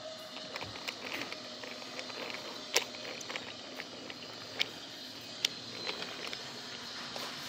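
Wooden toy train cars rolling along wooden track, with light rattling and a few sharp clicks as the wheels cross the track.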